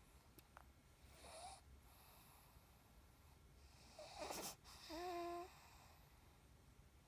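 Faint snoring. A soft breath comes about a second in and a louder snore about four seconds in, followed by a short whistling wheeze held for about half a second.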